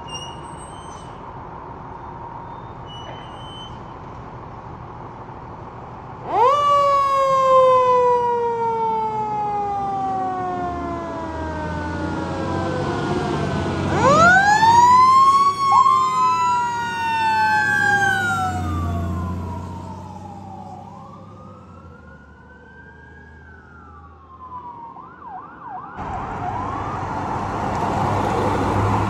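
Fire engine siren starting up. It winds up sharply about six seconds in and slides slowly down in pitch, winds up again twice around the middle, then fades. Near the end, road noise of a passing vehicle.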